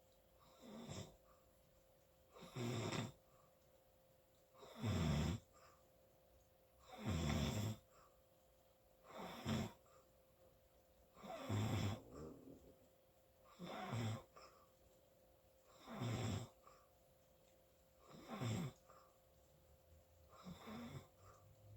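Snoring in sleep, regular and even, about one snore every two seconds, each one short, with quiet breathing gaps between.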